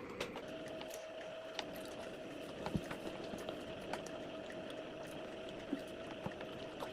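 Quiet, wet eating sounds: chewing and smacking with scattered small clicks, over a steady faint hum.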